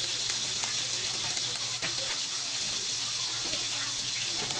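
Tap water running steadily into a sink or basin as hands wash something in it, with a few light clicks and knocks.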